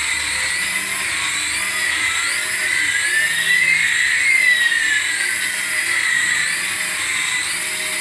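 Battery-powered light-up toy's electronic sound effect: a warbling tone repeating about twice a second, with a thin whine that rises in pitch to the middle and then falls away.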